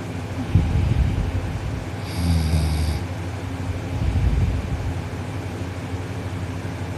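Loud snoring from a teenage boy sleeping on his back with his mouth closed: three snoring breaths in quick succession, then a pause of about two seconds near the end.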